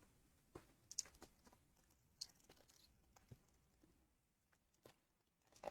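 Near silence with a few faint, scattered clicks and light rustles of trading cards being handled.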